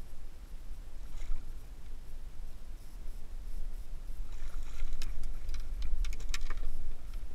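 Landing net with fish lifted out of the sea into a kayak: a cluster of sharp splashes and drips from about four seconds in as water pours off the mesh. Under it, a steady low rumble.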